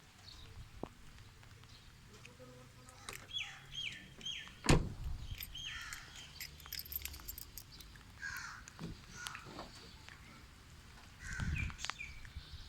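Birds chirping in quick runs of short, high calls, with one sharp, loud thump about a third of the way through.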